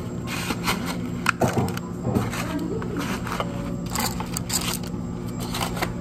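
Metal tongs clicking and scraping while paper macaron liners crinkle, as macarons are picked up and packed into paperboard boxes. The handling comes as irregular light taps and rustles over a steady low hum.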